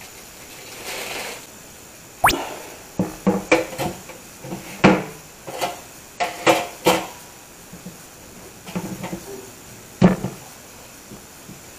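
A white plastic cutting board knocking and clattering against a stainless steel sink as it is set down and pushed into place. There is a quick run of sharp knocks from about two to seven seconds in, and another knock near ten seconds.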